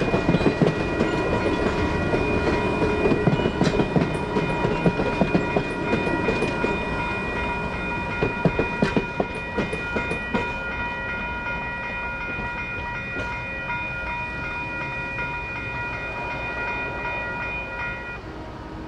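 Passenger train cars rolling through a grade crossing, wheels clacking over the rail joints and fading away over the first half. The crossing's WCH Type 4 electronic bells ring steadily and cut off near the end as the crossing shuts down after the train clears.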